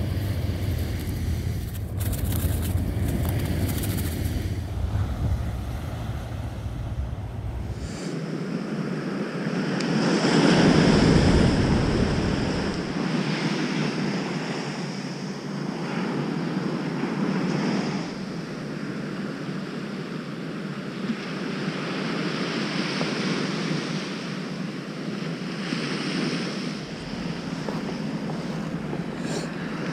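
Surf on a sandy beach: waves breaking and washing up the shore, the sound swelling and easing every few seconds, loudest a few seconds after it comes in. For the first several seconds a low wind rumble on the microphone covers it.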